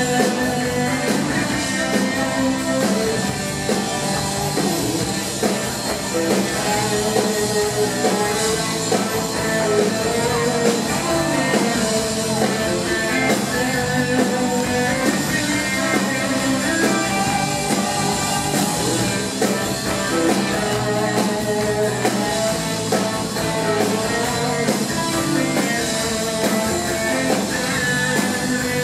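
Live rock and roll band playing loudly and steadily: electric guitars, keyboard and drums.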